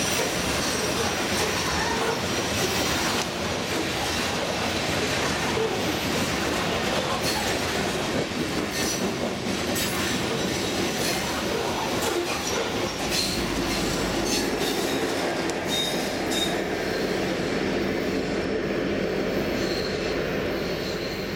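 Coal hopper cars rolling past: steady wheel and rail noise with clicking over the rail joints and short wheel squeals. A little past halfway, the low rumble of a BNSF diesel locomotive at the end of the train joins in.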